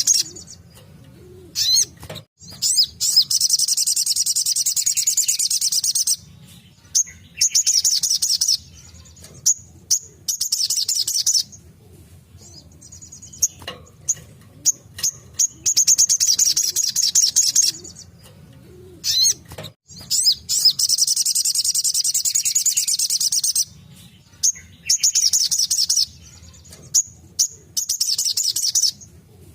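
Spiderhunter (sogok ontong) singing its rapid-fire song: fast, high trills lasting about three seconds each, repeated six times, with short single chirps in the gaps between.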